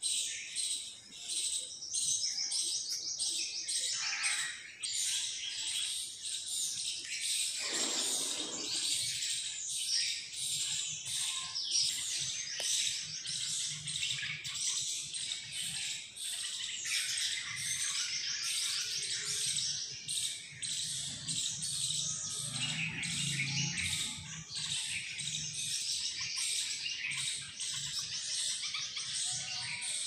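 Many small birds chirping together in a dense morning chorus of rapid, overlapping high chirps, with one falling call about a quarter of the way in.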